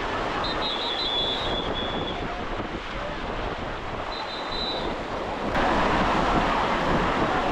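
Ocean surf washing onto a beach, with wind buffeting the microphone; the sound turns suddenly louder about five and a half seconds in.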